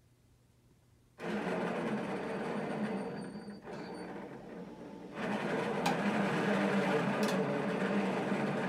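Electric actuator motors of a flexible-wing aircraft test rig start abruptly about a second in and run steadily with a low hum, pulling the control cables that tilt the wing mast. They ease off slightly for a moment, then run louder from about five seconds in.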